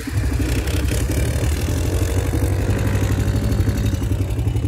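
An engine running steadily at a low, even speed, its firing heard as a rapid, regular pulsing with a steady hum.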